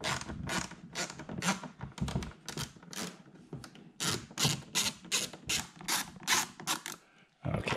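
Small hand ratchet backing out mounting screws, with a short rattle of ratchet clicks on each back-stroke, about three strokes a second. The clicking stops shortly before the end.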